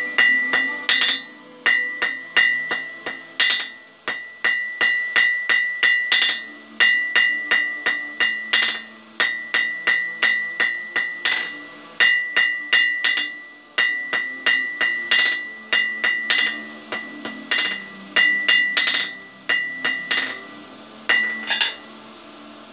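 Hand hammer forging red-hot steel on an anvil: quick runs of blows, about two or three a second, with short pauses between runs, each strike followed by the anvil's high ring. The piece is a prong of a grappling hook being shaped.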